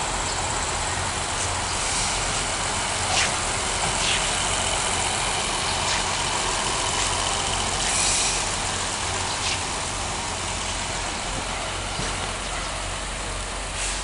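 Diesel-electric multiple unit (DEMU) train running as it rolls slowly past at low speed, with a steady engine hum under the noise of the train. Scattered clicks and knocks come from the wheels and running gear, and a thin high whine rises in the middle.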